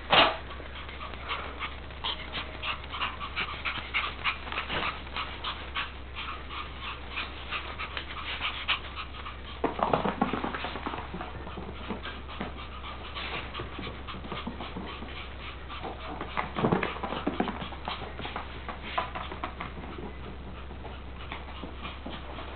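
Puppies whimpering in many short, high-pitched cries, with louder yelps at the start, about ten seconds in and again about seventeen seconds in.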